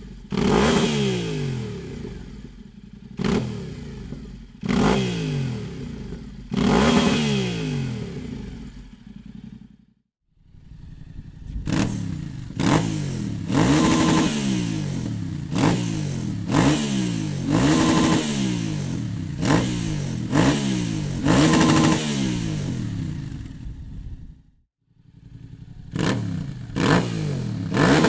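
Yamaha Tenere 700's 689 cc parallel-twin engine through a Dominator aftermarket exhaust, revving in repeated sharp throttle blips, each falling back toward idle. The sound drops out briefly twice, about ten seconds in and near the end; in the middle stretch the blips come about every second and a half.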